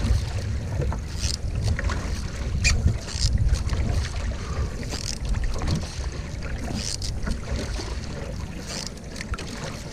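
Canoe paddle strokes splashing in the lake every second or two, over a steady low rumble of wind on the microphone.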